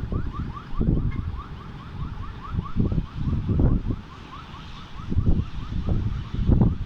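Wind buffeting the microphone in uneven gusts, over a steady, fast chirping of about five short rising chirps a second.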